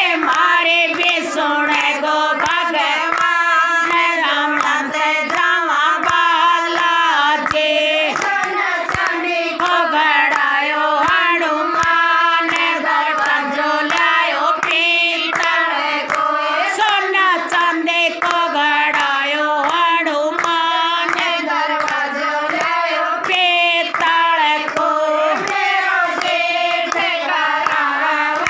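A group of women singing a Hindi devotional bhajan to Hanuman together, clapping their hands in a steady rhythm to keep time.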